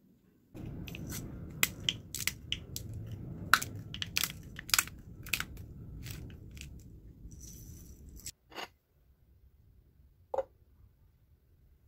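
Hand-twisted pepper grinder cracking peppercorns: a crunchy grinding noise full of sharp little cracks, starting about half a second in and stopping after about eight seconds.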